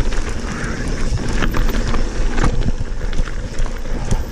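Mountain bike riding down a gravel and small-stone trail: wind buffeting the camera microphone over the crunch and rattle of tyres and bike on stones, with a few sharp knocks as it hits rocks.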